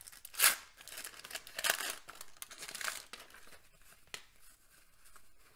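Wax paper wrapper of a 1989 Donruss baseball card pack being torn and peeled off the cards, crinkling in irregular short bursts. It is loudest in the first three seconds and quieter after that.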